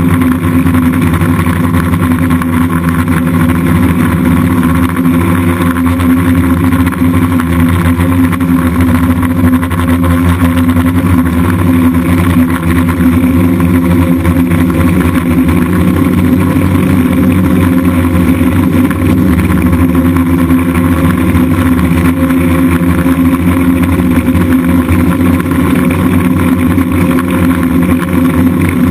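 Brushless motors and propellers of a DJI F550 Flame Wheel hexacopter in flight, a loud, steady multi-tone buzz whose pitch wavers slightly as the motors adjust.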